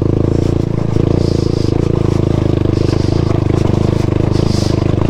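Motorcycle engine running at steady low revs as the bike picks its way over a loose rocky track, with stones scraping and clattering under the tyres.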